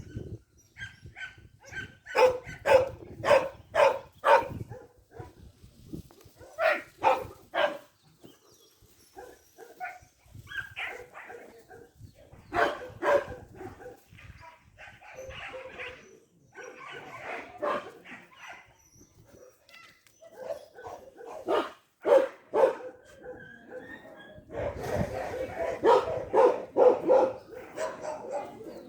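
A dog barking in repeated bouts of several quick barks, the densest run near the end, with quieter sounds between the bouts.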